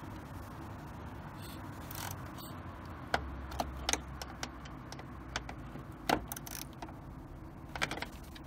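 Light metallic clicks and taps, irregular and scattered, as a screwdriver works the mounting screws of a throttle position sensor on the throttle body to fix its setting.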